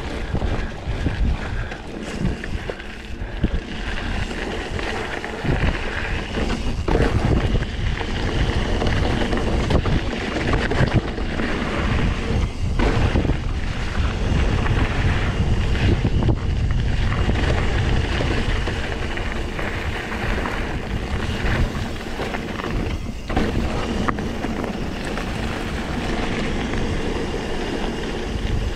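Wind buffeting the microphone: a loud, heavy low rumble with scattered short knocks.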